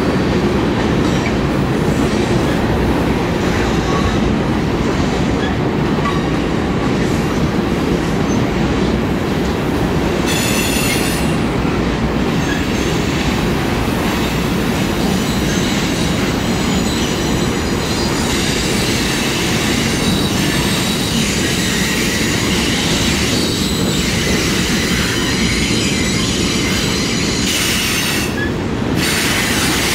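Freight cars rolling past: a steady rumble of steel wheels on rail, with high-pitched wheel squeal on the curve coming and going from about a third of the way in.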